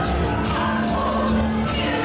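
Live worship band of drums, bass guitar, electric guitar and keyboard playing a slow congregational song, echoing in a large hall.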